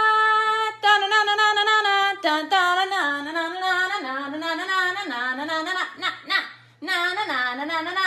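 A wordless singing voice: a long held note, then a slightly lower held note, then a wavering tune that swoops down and up again and again, with a short break about two-thirds of the way through.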